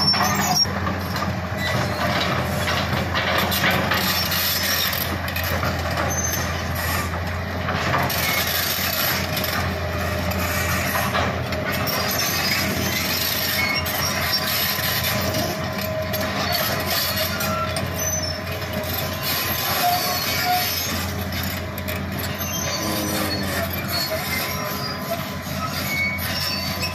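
Hitachi Zaxis hydraulic excavator working: its diesel engine runs steadily with a constant low hum, with short high squeals coming and going from the moving machine.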